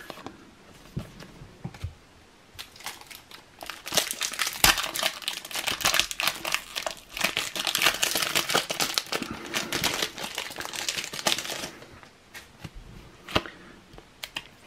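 A trading-card booster pack's foil wrapper being torn open and crinkled by hand, a dense crackling from about two and a half seconds in until about eleven seconds. After that come a few soft clicks as the cards are handled.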